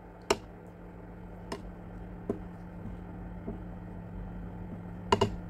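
Plastic spatula working dal in a nonstick pan: a few sharp knocks of the spatula against the pan, with a quick double knock near the end, over a steady low hum.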